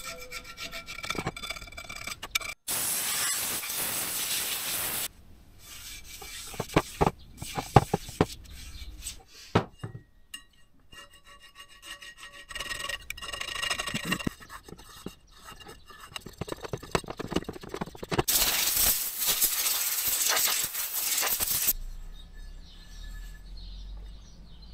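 A blade scraping corrosion and old sealant off the metal mating surface of an electric hub motor's cover, in rasping strokes with small clicks and knocks between. The two longest scrapes come a few seconds in and about three-quarters of the way through.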